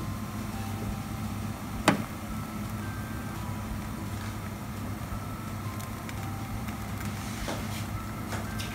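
Steady low hum and hiss of a gas stove burner on a low flame under a tava, with one sharp click about two seconds in.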